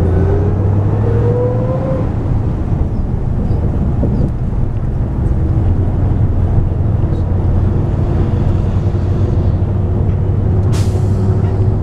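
Car engine and road noise heard from inside a moving car: a steady low drone, with an engine tone that rises in the first two seconds as the car speeds up, then holds steady. A short sharp noise comes near the end.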